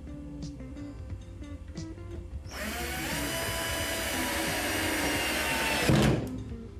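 Cordless drill driving a 1¼-inch wood screw through a concealed cabinet hinge: the motor starts about two and a half seconds in and runs for about three seconds with a rising whine, then stops with a loud knock. Background music plays throughout.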